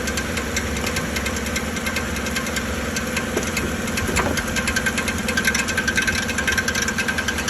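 Chevrolet Silverado's 5.3-litre V8 idling with a steady metallic knocking that sounds like a cracked flywheel. The mechanic traces it to a loose sleeve on the starter's bendix drive, not to the flywheel or the engine internals.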